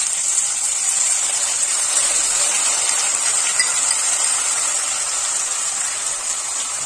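Wet ground paste of onion, garlic, ginger, tomato and dried chilli sizzling in hot mustard oil in a kadai, a loud, steady hiss of the paste's water frying off.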